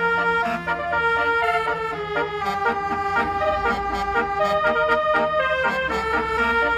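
Basuri musical vehicle horn playing a melody of held, organ-like notes, with a steady low engine rumble beneath.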